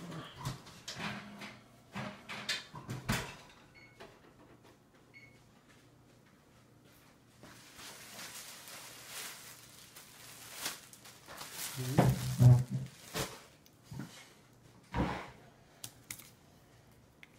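Scattered knocks and thumps with a stretch of soft rustling in the middle; the loudest cluster of thumps comes about two-thirds of the way through.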